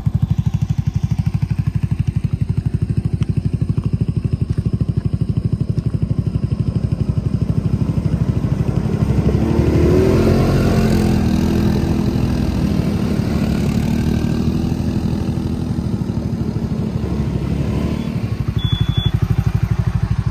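ATV engine running steadily as it climbs a rough mountain track. The note gets louder and fuller about halfway through, then settles back near the end.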